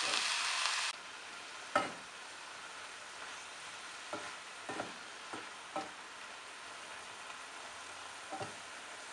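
Sliced mushrooms sizzling in hot oil while being stir-fried in a pan with a wooden spatula. The sizzle is loud for about the first second, then drops to a quieter steady sizzle, with a handful of short taps of the spatula against the pan.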